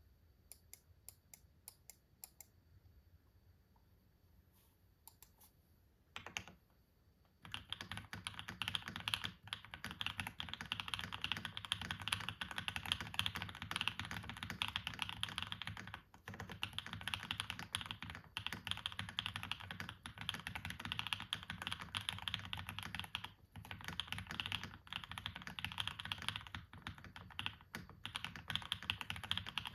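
Typing on a Brutal65 V2 mechanical keyboard with hand-lubed Gateron Smoothie linear switches, force-break mod and PE, plate and case foam. A few scattered keystrokes at first, then from about seven seconds in steady fast typing with brief pauses.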